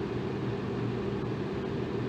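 Electric fan running steadily: a constant low whooshing rush of moving air with a faint hum from the motor.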